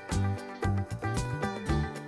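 Upbeat background music with a steady beat, bass and plucked guitar.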